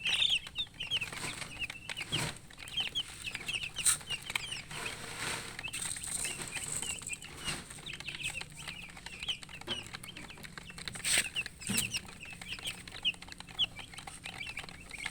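Baby chicks peeping, many short high-pitched chirps in quick succession, with a few sharp knocks in between.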